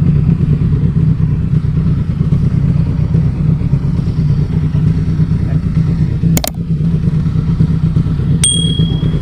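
Motorcycle engine running steadily at low speed or idle. About six seconds in there is a sharp click, and near the end a steady high-pitched beep.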